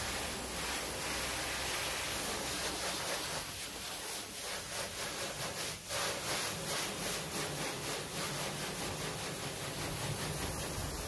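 Water from a garden hose spraying onto a car's soapy hood, a steady hiss and spatter on the paint as the suds are rinsed off.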